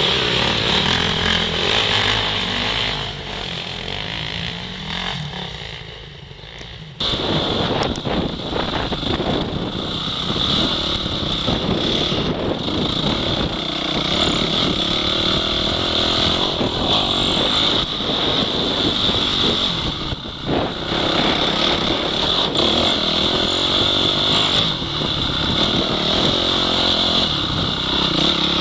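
Off-road dirt bike engine running hard under throttle over rough ground, with frequent knocks. The sound sags for a few seconds and comes back abruptly about seven seconds in.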